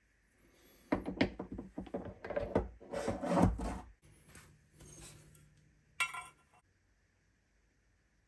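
Rubbing, scraping and quick clicks of a BMW S38 oil pump's rotor being pushed and turned into its casing by hand. About six seconds in there is one sharp click, then quiet.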